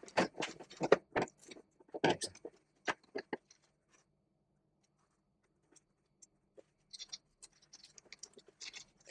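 Hands handling the plastic housing and wiring of an opened Neakasa M1 litter box while a sensor cable is threaded and tucked in: a run of small clicks, taps and rustles in the first three seconds or so, then a lull, then a few faint clicks near the end.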